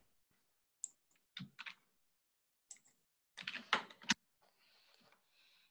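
Computer mouse and keyboard clicks: a few single clicks, then a quick run of clicks about three and a half seconds in.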